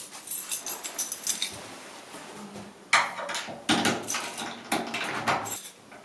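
Keys jangling and a door's lock and lever handle being worked: a run of light metallic clicks and jingles, then louder clicks and rattles from about halfway through.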